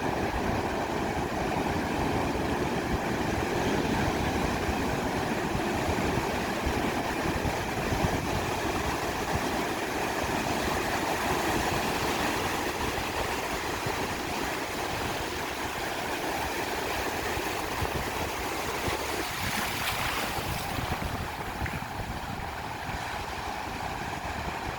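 Ocean surf washing onto a sandy beach: a steady rushing hiss that swells and eases, with one wave breaking brighter about twenty seconds in, over a low rumble.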